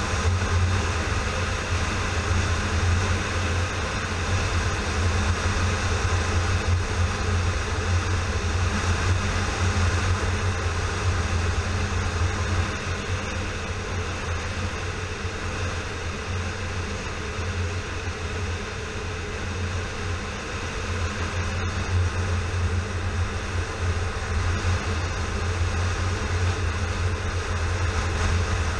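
A 2009 Yamaha FZ6R's inline-four engine running steadily at cruising speed, mixed with the rush of riding wind on the camera's microphone. The level eases off a little about two-thirds of the way through.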